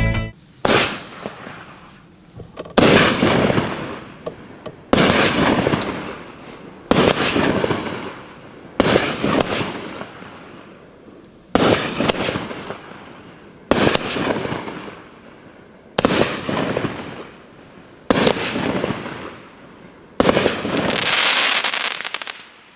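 A 200g consumer cake firework firing, about ten shots roughly two seconds apart, each sharp report dying away over a second or two.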